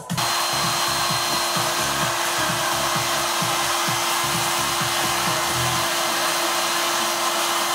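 Henry canister vacuum cleaner running steadily, a rushing suction noise over a steady motor hum, used to clean dust out of a dismantled reel-to-reel tape recorder. Faint electronic music with a beat plays underneath for the first several seconds.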